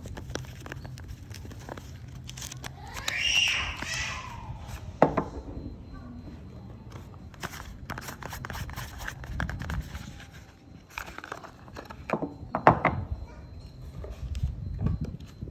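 Soap bars being unpacked and handled: crinkling and crackling of the wrappers with light ticks and taps. A brief higher squeaky sound comes about three seconds in, and sharp knocks come about five seconds in and near the end.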